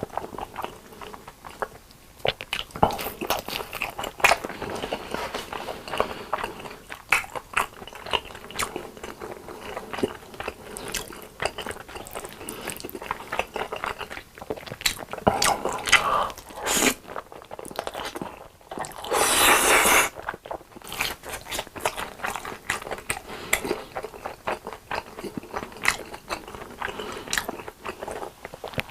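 Close-miked eating: crunchy bites and wet chewing of fried breaded cheese sticks and chili tomato spaghetti, in many sharp, irregular crunches. A longer burst of noise comes about two-thirds of the way through.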